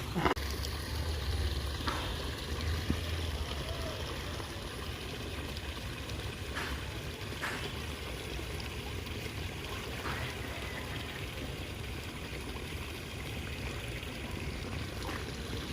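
Steady wash of flowing river water, with a low rumble strongest in the first few seconds and a few faint clicks.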